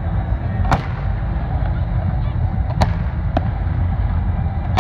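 Aerial fireworks shells bursting: three sharp bangs, the first about a second in and two close together near the three-second mark, over a steady low rumble.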